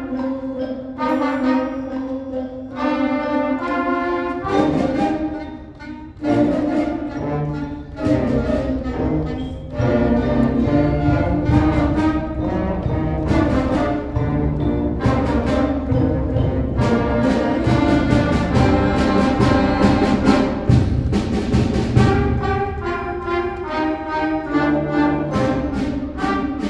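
Middle school concert band playing a piece together, flutes and saxophones among the instruments. The band fills out and grows louder about eight to ten seconds in.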